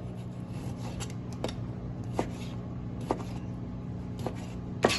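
Raw chicken breast being cut into small cubes: a knife taps against a cutting board about six times at irregular intervals, the loudest tap near the end.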